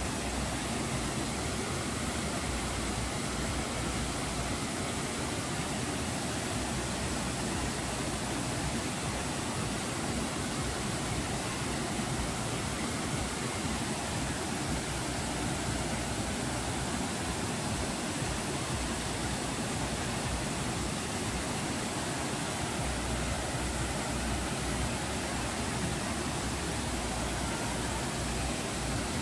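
Steady rushing of a small waterfall: a thin, evenly spread sheet of water falling about 10 metres onto rock.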